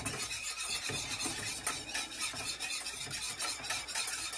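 A spoon stirring and scraping through a thickened flour-and-chicken-stock sauce in a pot, a continuous scraping with small clicks against the pan.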